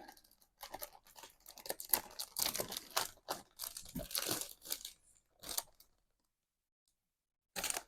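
Sheets of thick cardstock being handled and shuffled, rustling and crinkling in short irregular bursts, with a brief pause before one last rustle near the end.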